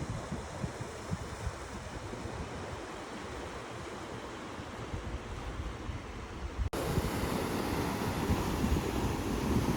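Ocean surf with wind, gusts buffeting the microphone. Partway through, the sound cuts abruptly to a louder, windier stretch.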